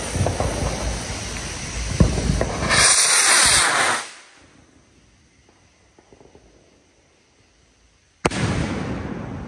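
HellCat green firework rocket: a sputtering, crackling fuse, then a loud whoosh as the rocket launches about three seconds in. After a few seconds of near quiet, the shell bursts overhead about eight seconds in with a single sharp bang and a long echoing tail.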